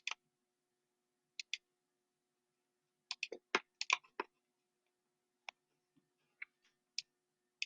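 Sparse clicking of a computer mouse and keyboard: a pair of clicks about a second and a half in, a quick run of clicks around three to four seconds in, then single clicks roughly every second.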